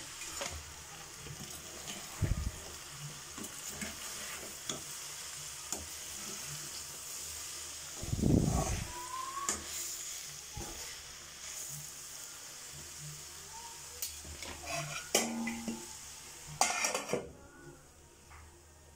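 Broccoli and potatoes sizzling in a steel kadai while a metal spatula stirs and scrapes them, with clinks against the pan and a couple of dull knocks, the louder about eight seconds in. Near the end a steel plate clinks on as a lid and the sizzle drops away.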